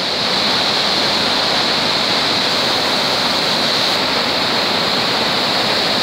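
Powerful waterfall and whitewater rapids rushing, a loud, steady, even sound of falling and churning water.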